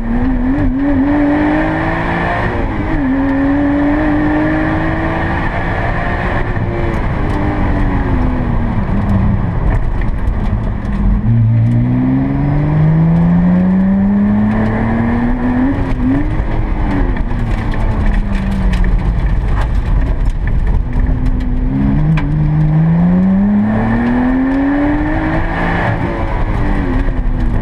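Lotus Exige S V6's supercharged 3.5-litre V6, heard from inside the cabin, accelerating hard on a timed run. Its pitch climbs steadily with short dips at gear changes, then falls away as the driver lifts off. This happens three times, over a steady rush of tyre and road noise.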